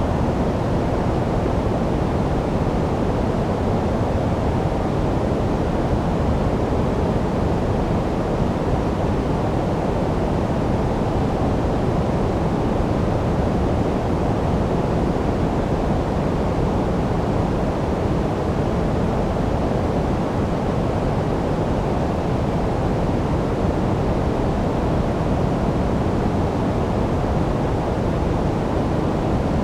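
Steady generated noise for sleep, an even, unbroken hiss weighted toward the low end, deeper than flat white noise.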